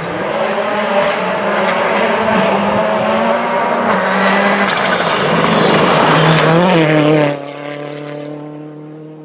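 Rally car engine running hard on a gravel stage, its note shifting up and down, under a loud hiss of tyres on gravel. About seven seconds in, the sound drops suddenly to a steadier, thinner engine drone that fades away.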